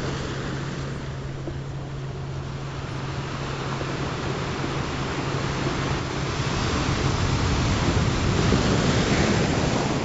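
Ocean surf recording: a steady wash of waves that swells to its loudest about eight to nine seconds in and then eases, over a steady low hum of a meditation frequency tone.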